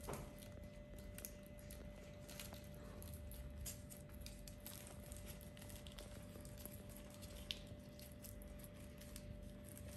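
Kittens' paws and claws pattering and scratching faintly on a surface as they play, in scattered small clicks and rustles with a sharper tick near the end, over a steady low hum.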